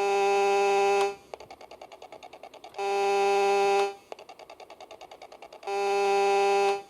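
Electronic sound effects from a vintage Nikko RC boat radio controller: a buzzy, horn-like tone held about a second, sounded three times, with a quieter rapid electronic putter of about eight pulses a second running between the blasts.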